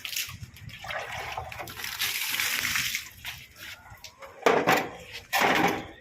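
Water running and splashing, with a steady rush in the first half and two louder splashes near the end.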